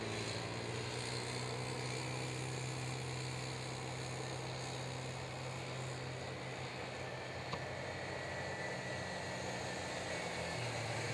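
Small youth ATV engine running at a steady speed around a dirt track, with a single sharp click about two-thirds of the way through and a shift in engine pitch near the end.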